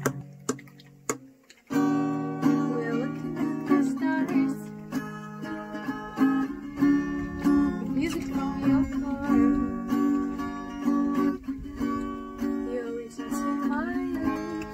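Acoustic guitar with a capo being strummed, with a girl's voice singing along. The music drops out for about a second near the start, then carries on.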